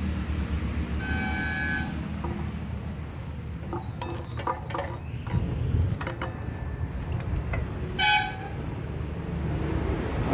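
Vehicle horns honking twice, a longer honk about a second in and a short one near the end, over a steady low traffic rumble, with a few sharp knocks and clicks in the middle.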